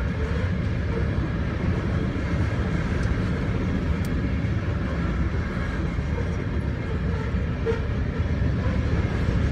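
Cars of a CN coal train rolling past at a grade crossing: a steady rumble of steel wheels on the rails.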